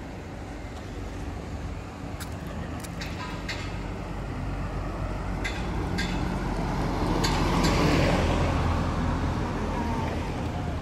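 Street traffic: a steady low rumble as a vehicle passes close by, growing loudest about eight seconds in and then fading. A few short clicks come in the first half.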